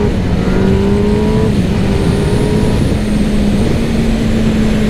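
2021 Kawasaki Ninja ZX-10R's inline-four engine on its stock exhaust, pulling hard under acceleration with its pitch climbing and an upshift from second to third gear partway through. A heavy rush of wind at speed runs underneath.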